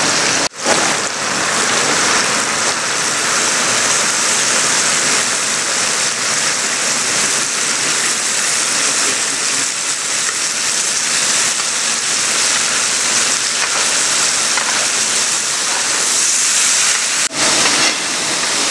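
Oil sizzling in a large pilaf kazan: a loud, steady hiss of frying, cut off for an instant about half a second in and again near the end.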